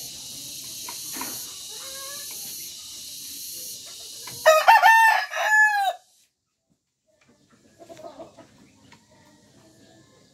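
Bulik gamecock crowing once, a loud crow of about a second and a half about four and a half seconds in, over a steady high hiss that cuts off suddenly right after it.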